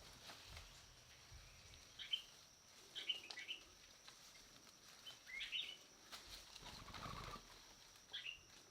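Faint wild bird calls: short chirps in four small groups a couple of seconds apart, over a steady thin high hum. A soft rustle comes about seven seconds in.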